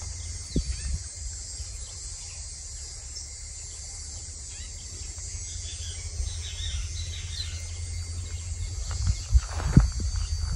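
Outdoor rural ambience: a steady high hiss of insects with a few bird chirps about two-thirds of the way in, over wind rumbling on the microphone. Footsteps on the dirt road come in near the end.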